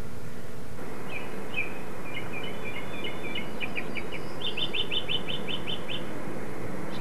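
A small songbird singing: a string of short high chirps, then a quick run of about ten repeated notes before it stops near the end, over a steady hiss.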